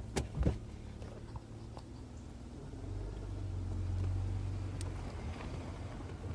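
1999 BMW 328i convertible's straight-six running low while the car reverses, its hum swelling a little midway, with two sharp knocks near the start and a few fainter ticks later. This is an odd noise from the rear of the car, which the owner suspects may come from the storage area.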